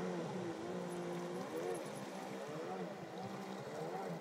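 Jet ski engine running, its pitch rising and falling every second or so.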